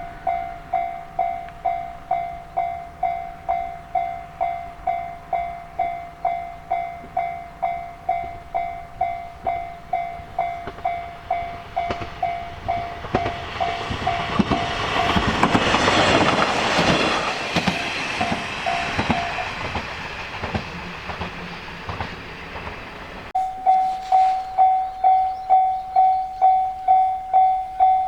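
Japanese level-crossing warning bell ringing its electronic kan-kan, about two strokes a second. Midway an electric train passes over the crossing, its wheels clacking over the rail joints and drowning the bell, which then stops. A few seconds before the end a crossing bell starts again abruptly and loud.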